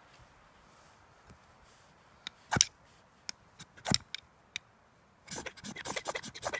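Knife spine scraped down a ferrocerium rod to throw sparks onto tinder and light a fire. There are two sharp strikes about a second apart in the middle, a few light ticks, then a quick run of scrapes near the end.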